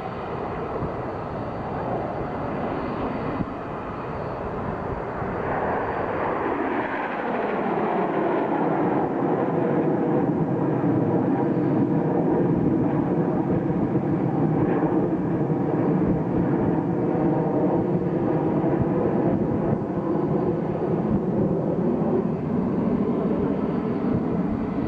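Nine BAE Hawk T1 jets of the Red Arrows, each with a single Adour turbofan, flying over in close formation. The jet noise sweeps down in pitch about six to eight seconds in, then holds louder and steady.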